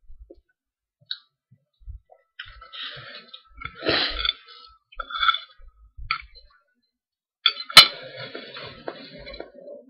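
Eating sounds: a utensil clinking and scraping against a dish of scrambled eggs in short scattered bursts, with one sharp clink a little before the end as the loudest.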